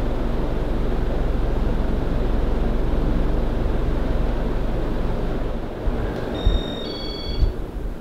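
Casablanca Ventura II ceiling fan running at speed with a steady motor hum and rush of air. Past the middle it quietens, and two short electronic beeps sound with a couple of dull thumps as the fan's speed drops.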